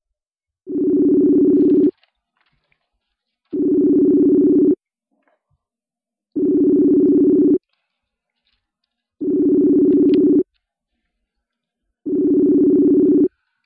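Facebook Messenger outgoing video-call ringback tone: a low two-tone ring about a second long, sounding five times, once every three seconds or so, while the call rings unanswered.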